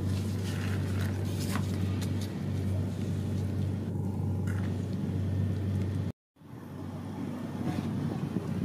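A steady low drone, with faint clicks and rustles of fried shallots and dried chilies being set down on a plate by hand; the sound drops out for a moment about six seconds in.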